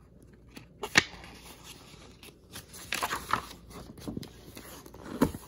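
A picture-book page being turned by hand: paper rustling and crinkling, with a sharp tap about a second in.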